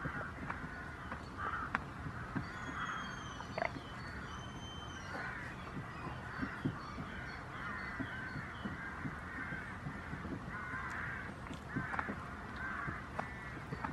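A goat chewing close to the microphone, with short crunching knocks, while a flock of birds keeps up a busy chorus of short cawing calls in the background.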